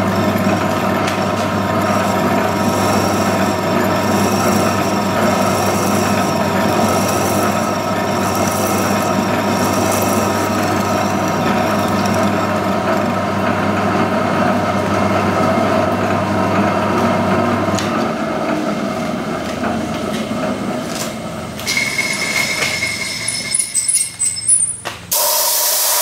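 Horizontal milling machine running a slitting saw on its arbor to cut a slot in a cast aluminium plate, a steady mechanical drone with a hum. It spins down about three-quarters of the way through, followed by a few clicks and a short, loud hiss near the end.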